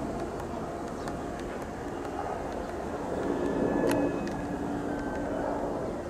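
Military helicopter flying overhead: a steady drone of rotor and engines that swells slightly a little past halfway through.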